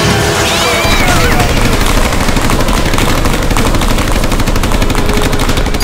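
Rapid automatic gunfire, shots packed closely together without a break, over a steady low rumble: battle sound effects laid over a Nerf war fight.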